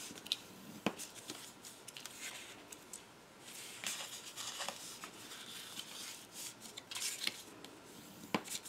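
Scored patterned paper being folded and creased along its score lines by hand: light crackling rustles and a scattering of short sharp clicks.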